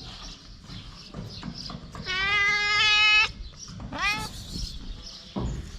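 Cat meowing: one long, wavering meow lasting about a second, then a short meow rising in pitch about a second later.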